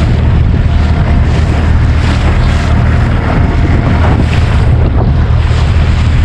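A small boat's outboard motor running steadily at trolling speed, heard as a continuous low drone. Heavy wind buffets the microphone over the rush of choppy sea.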